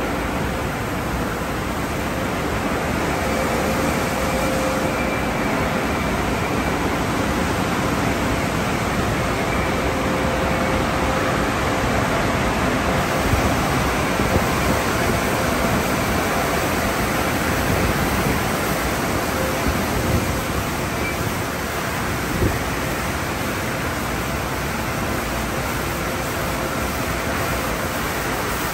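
Sonny's conveyor tunnel car wash running: water spraying and cloth wash brushes spinning against a car, a steady rushing noise with a faint steady hum underneath and a few small clicks.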